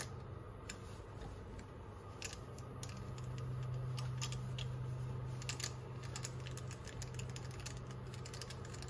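Scattered light metallic clicks and ticks from handling the lathe's tailstock, its quill lock lever and handwheel, over a steady low hum that swells in the middle.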